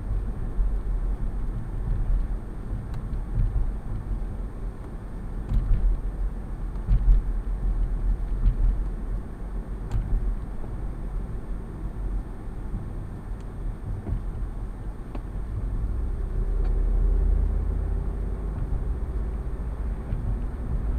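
Low rumble of a car driving on the road, heard from inside the cabin: tyre and engine noise that swells and eases, growing louder around three-quarters of the way through. A faint steady high-pitched whine sits above it.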